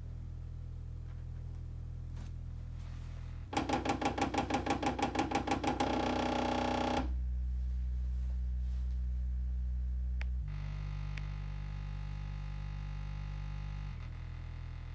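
Bass test tones played through a pair of bare 1990s Citroën Xantia factory car speakers: steady deep tones that change pitch in steps every few seconds. About three and a half seconds in there is a fast pulsing run of about five beats a second, then a louder held tone, and later a stretch with a buzzier edge over the bass.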